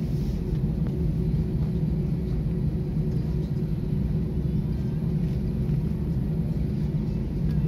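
Steady low rumble inside an airliner's cabin as the jet taxis after landing: engine and airframe noise with no rise or fall.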